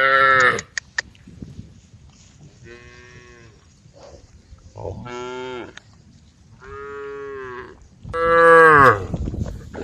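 Cows mooing: five separate long calls, one about every one and a half to two seconds, the last near the end the loudest.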